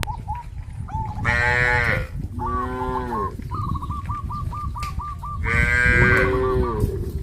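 Cows mooing: three calls, each dropping in pitch, about a second in, around two and a half seconds, and a longer, louder one near the end. Between them a bird calls in a quick repeated series.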